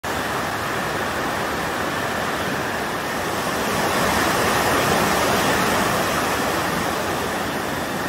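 Fast mountain river rushing over rocks as white water, a steady sound of water that grows slightly louder about halfway through.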